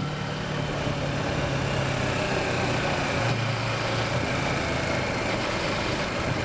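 Kawasaki Versys motorcycle engine running steadily at low road speed, with a rushing wind and road noise beneath it.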